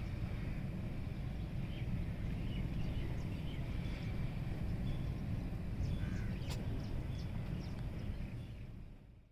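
Outdoor ambience of scattered short bird calls over a steady low rumble, with one sharp click about six and a half seconds in, all fading out near the end.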